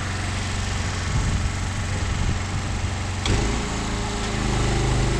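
Engine running steadily at idle; about three seconds in its note shifts to a lower, smoother drone.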